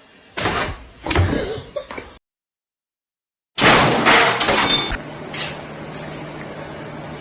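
Noisy crashing and clattering in short bursts, with the loudest crash a little over halfway through, after a second and a half of dead silence.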